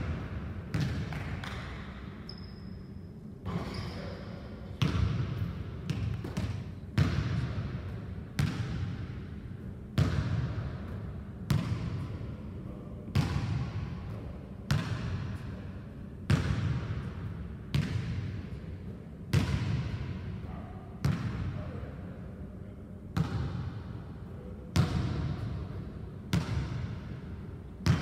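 A basketball bouncing on a hardwood gym floor, about once every second and a half. Each bounce rings on in the echo of the large hall.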